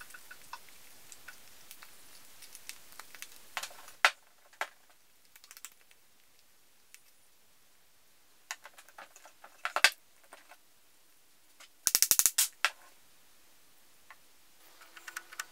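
Handling noises of a plywood lawnmower wheel with a rubber tyre and its metal bearing parts on a bench: scattered clicks and a few sharp knocks, and one brief rapid clatter late on.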